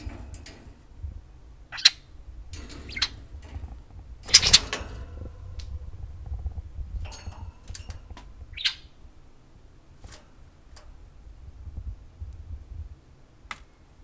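Pet budgerigars chirping in scattered short calls, with the loudest burst about four and a half seconds in.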